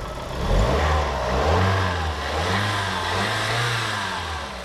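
Toyota Vista's 3S-FSE D-4 direct-injection four-cylinder engine running and being revved, its pitch rising and falling several times. It runs now that its high-pressure fuel pump finally has fuel under pressure.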